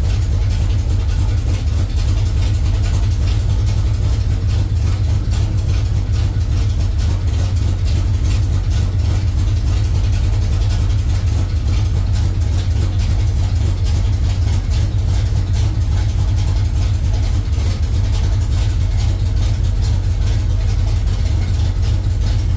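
Truck engine idling steadily on a newly fitted FAST self-learning EFI fuel system, holding an even speed with no revving.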